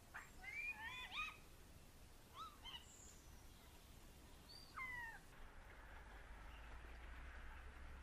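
European starling calling: short slurred whistles that rise and bend in pitch, in a quick cluster in the first second and a half, a few more near three seconds, and one falling whistle about five seconds in.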